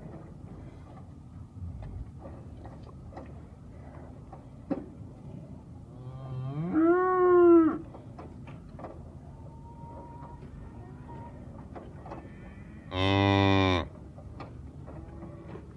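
Cows mooing twice: a long, loud call about six seconds in that rises and then falls in pitch, and a shorter, steady call near the end.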